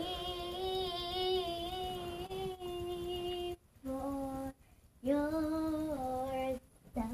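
A girl singing wordless held notes in three phrases. The first is a long wavering note, then comes a short one, then one that steps down in pitch.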